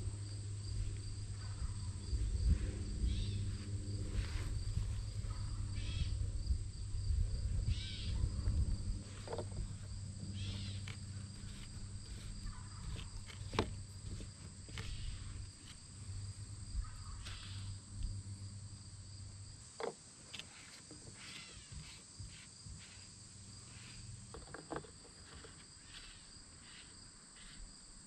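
Insects droning steadily in the background, with scattered clicks and scrapes of PVC pipe fittings being handled. A low steady hum runs under it and stops about two-thirds of the way through.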